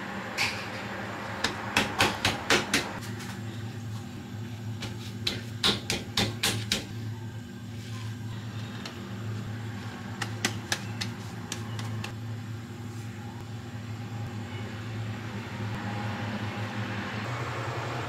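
Paper towels being pressed and patted against raw duck breasts to dry them, heard as three short runs of quick, sharp taps and rustles, over a steady low hum.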